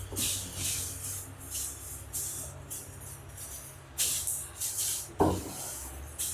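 Plastic packaging rustling and crinkling in short bursts as an item is unpacked, with a couple of knocks about four and five seconds in, over a steady low hum.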